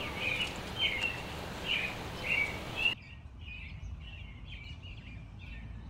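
Songbirds singing outdoors, short chirping phrases repeated every half second or so. For the first three seconds a steady hiss lies under them and cuts off suddenly; after that the birdsong carries on more faintly.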